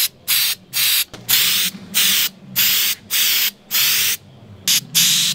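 Aerosol can of Rust-Oleum truck bed coating being sprayed in short bursts of hiss, about two a second, as the coating goes onto welded aluminium brackets.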